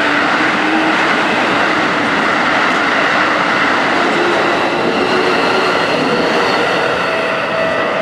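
Keikyu electric train passing close by at speed: a loud, steady rush of wheels on rail and running gear, with faint tones coming and going.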